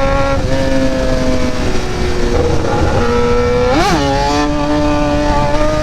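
Kawasaki ZX-10R inline-four sportbike engine pulling hard under heavy throttle for a wheelie. Its pitch climbs slowly and drops back at a few points, with a quick sharp rise and fall of revs about four seconds in.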